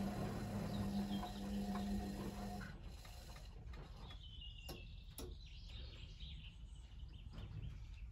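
ATLANT 45Y82 front-loading washing machine in its final rinse: the drum motor hums as it tumbles the load, then stops about two and a half seconds in and the drum rests. A few faint clicks and a short high chirp fall in the pause.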